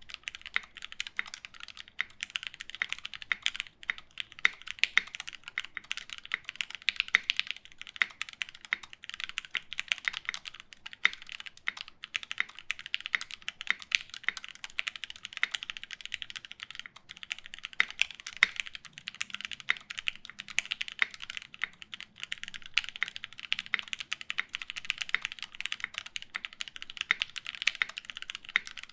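Taichi TKL mechanical keyboard with lubed Gateron Black KS-3 linear switches, an FR4 plate and GMK keycaps being typed on continuously: a dense, unbroken run of keystroke clacks.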